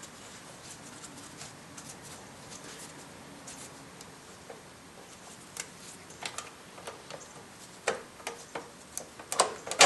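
Light ticks and clicks of a screwdriver backing a Phillips-head screw out of a plastic piece in the engine bay, sparse at first, then louder and more frequent over the last two seconds, ending in a sharp click.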